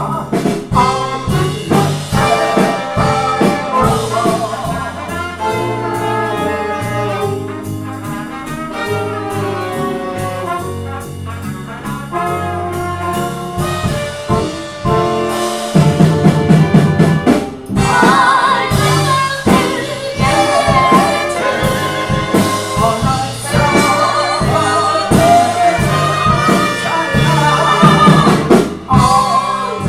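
Live band playing an instrumental passage of a jazz-standard song, with melodic lines over a steady beat.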